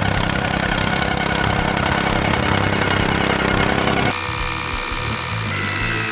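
Tamping rammer running as it pounds soil. About four seconds in it gives way to a plate compactor running.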